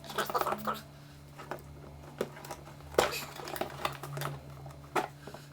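Packaging being handled while unboxing: scattered light clicks, taps and rustles of cardboard and packing material.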